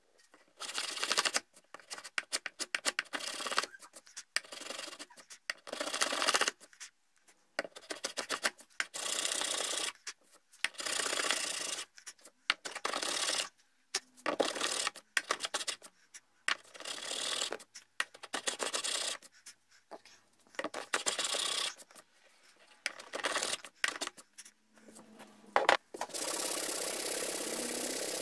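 Sanding a hardwood cutting board to level a glued-in wooden bowtie inlay flush with the surface. There are repeated scratchy strokes, short and quick at first and later longer, even passes of a second or two.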